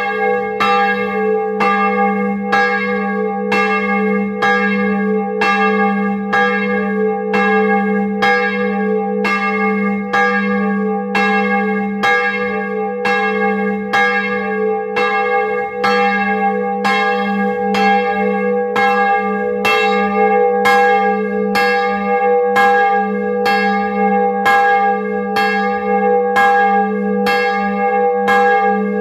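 A 1658 bronze church bell sounding G#3, swinging in its wooden frame and struck by its clapper in a steady rhythm of about three strokes every two seconds. A low hum rings on under the strokes, heard close up inside the belfry.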